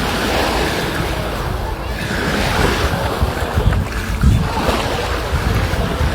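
Sea surf washing ashore, with wind buffeting the microphone in uneven low gusts.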